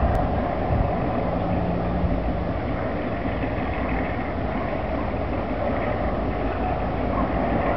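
Steady rumble of an EMD G22 diesel locomotive running out of sight, with a faint steady tone for about a second and a half near the start.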